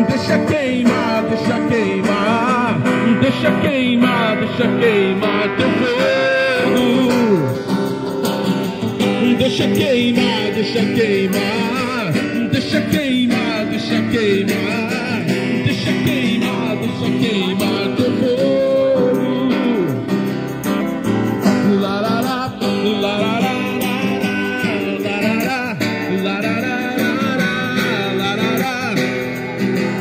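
A man sings a worship song through a microphone and portable loudspeaker over a strummed acoustic guitar.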